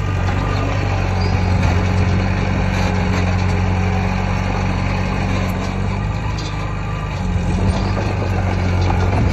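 Heavy diesel engine of earthmoving machinery running steadily at a constant speed.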